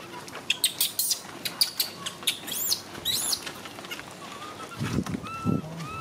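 High animal chirps and squeaks. A quick run of sharp clicks comes in the first two seconds, then two high arching squeaks about halfway through, and a thin held call near the end.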